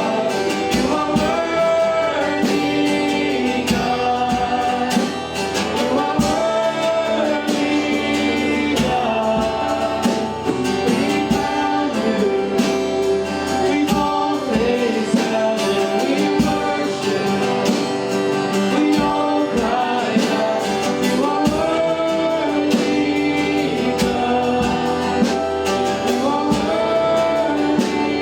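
Church worship music: singing over a band with guitar and a steady beat.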